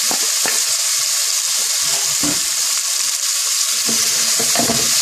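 Freshly added sliced onions sizzling in hot vegetable oil in a steel pot, a steady hiss as they are stirred, with a few light knocks.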